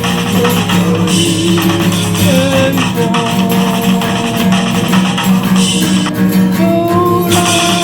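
Song music with guitar and drums, and no lyrics sung: an instrumental passage of the song.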